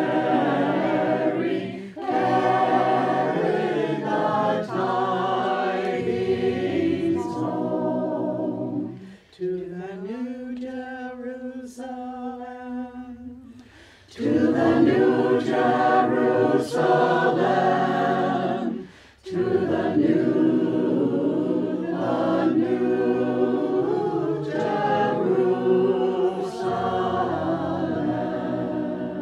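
Mixed choir of men's and women's voices singing a traditional hymn a cappella in four-part harmony. About ten seconds in, the sound thins to a few voices for several seconds before the full choir comes back in.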